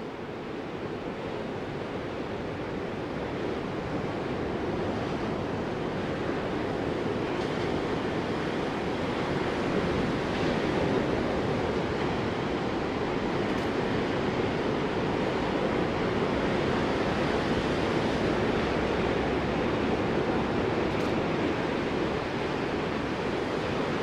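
Ocean surf breaking and washing onto a beach: a continuous, even rush of water that swells over the first several seconds and then holds steady.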